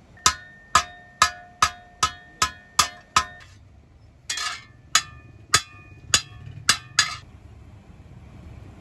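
Hand hammer striking a steel kasi (spade) blade on an anvil: eight quick ringing metallic blows, a little over two a second, then a short scraping clatter about four seconds in, then five slower blows before it stops.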